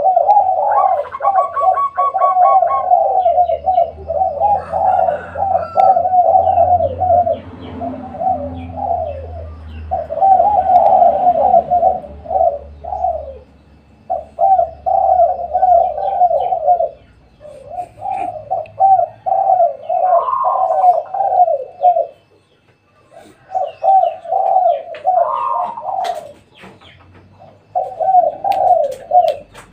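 Spotted doves cooing, their rolling phrases repeated in bouts of a few seconds with short pauses between.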